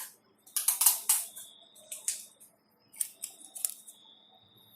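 Packaging being opened by hand: a quick run of sharp rustles, snips and clicks, the busiest cluster about half a second to a second in, then a few more single clicks.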